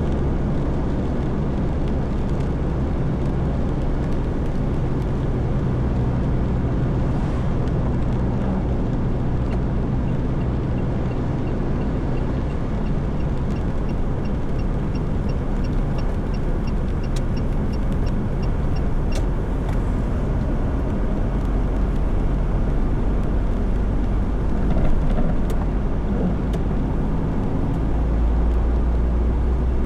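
A car driving, with a steady low road and engine rumble. About halfway through comes a run of quick, light, evenly spaced ticks lasting a few seconds.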